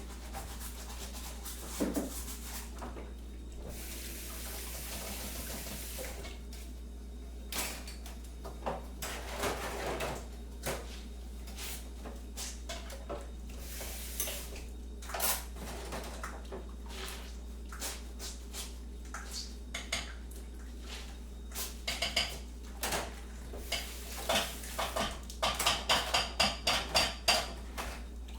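Kitchen crockery and cutlery clattering: scattered clinks and knocks, with a short hiss about four seconds in, and a quick run of regular clinks, about three a second, near the end. A steady low hum lies underneath.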